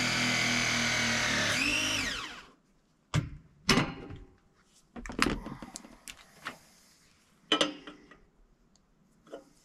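ProPress press tool crimping a copper fitting, its motor whirring steadily, then shifting in pitch and stopping about two seconds in. A few sharp clicks and knocks follow as tools and pipe are handled.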